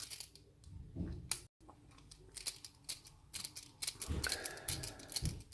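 Scattered small metallic clicks and scrapes as a rim cylinder lock and a screwdriver are handled while the lock is being taken apart.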